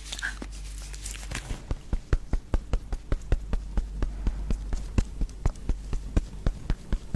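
Rapid light tapping close to the microphone, sharp clicks at about six a second starting about a second and a half in.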